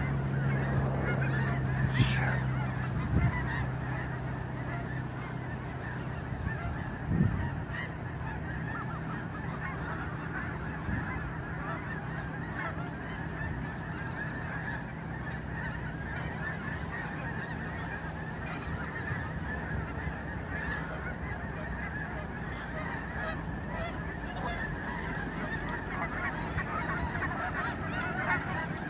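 A flock of geese honking, many calls overlapping in a continuous din, with a sharp click about two seconds in.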